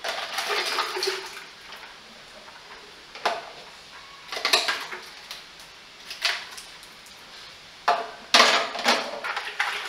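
Water and ice being poured from a bottle into a bucket, splashing and clattering in a series of short bursts, the loudest near the end.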